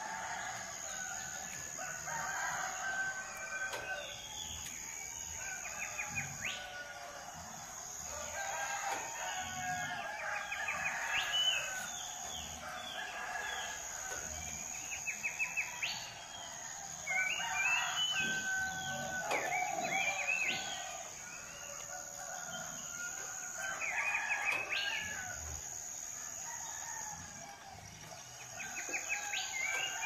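Roosters crowing again and again over chirping and trilling songbirds, with a steady high insect buzz behind them.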